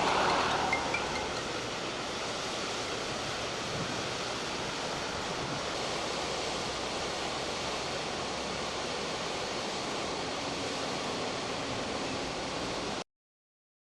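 Steady rushing of flowing water, a little louder in the first second, cutting off abruptly near the end.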